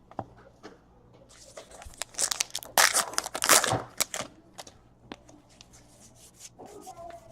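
A baseball card pack's wrapper being torn open and crinkled by hand, a burst of rustling and tearing a second or so in that lasts a couple of seconds, followed by a few light clicks of cards being handled.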